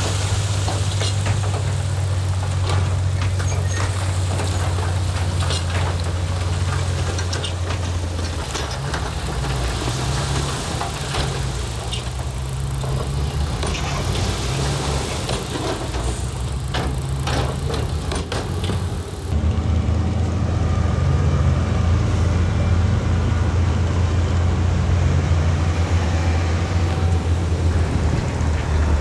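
Heavy diesel engine of earth-moving equipment running steadily, with frequent clanks and rattles over the first two-thirds. About two-thirds of the way in the sound changes abruptly to a steadier engine drone with fewer knocks.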